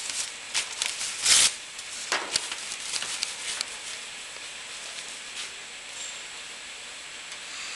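Paper towel torn off a roll and crumpled in the hands: a sharp tearing rush about a second and a half in, with crinkling and rustling around it that dies away after a few seconds.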